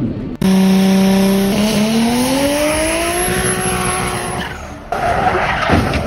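Car engine revving: it starts suddenly, holds a steady note for about a second, then climbs slowly in pitch as it accelerates. It gives way to a rush of noise near the end.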